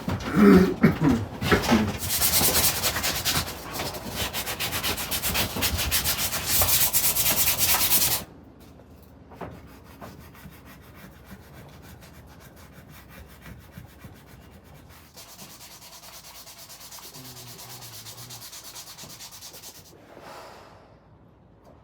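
Sanding the patched wood of a dog-chewed chair leg: a loud, dense scratching for about the first eight seconds, then it drops suddenly and carries on much more quietly.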